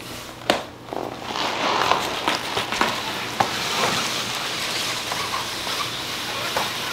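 A large, heavy cardboard box holding a flat-pack dresser being shuffled and scraped along a hardwood floor, with a steady scraping rasp and a few knocks.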